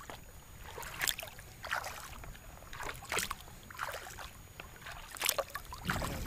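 Kayak paddle strokes: the blades dip and splash in the lake water about once a second. A low rumble comes in near the end.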